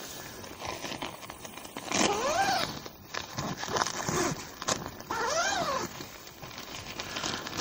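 A tent vestibule door zipper pulled open in two strokes, each a rising-then-falling zip about half a second long, the second about three seconds after the first. Between them, the polyester flysheet rustles and crinkles as the door flap is handled.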